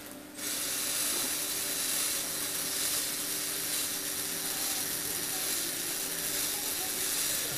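Lego Technic motor and gear train running steadily, driving a scissor lift under a model car, with a high whirring hiss. It starts about half a second in.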